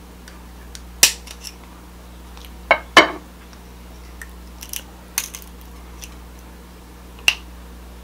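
King crab leg shell being snipped with kitchen scissors and cracked apart by hand: a string of sharp crunchy cracks and snips with lighter clicks between, the loudest a double crack about three seconds in.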